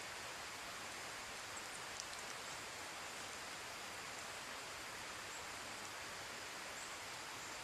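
Rain falling steadily, an even hiss, with one faint tick about two seconds in.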